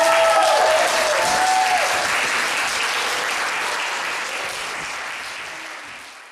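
Theatre audience applauding, with a few cheering voices near the start, fading out gradually.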